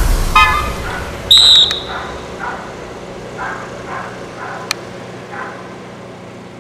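Dog barking, a loud bark just after the start and then a run of fainter barks that fade. A short, shrill whistle blast cuts in about a second in.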